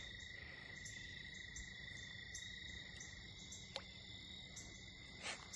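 Faint chorus of crickets or similar insects calling at a pond's edge: a steady high trill with a higher chirp pulsing about twice a second, and a single small click a little before the end.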